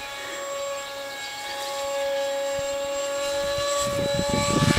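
Radio-controlled model plane's motor and propeller whining at a steady pitch in flight, getting louder as the plane approaches. A low rumble comes in near the end.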